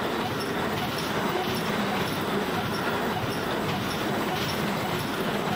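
Container wagons of a long freight train rolling past at speed: a steady noise of steel wheels running on the rails.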